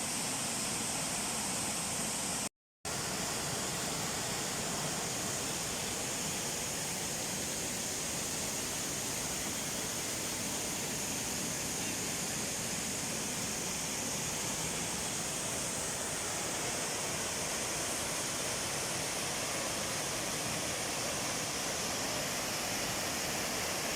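Waterfall rushing: a steady, even roar of falling water that cuts out for a moment about two and a half seconds in.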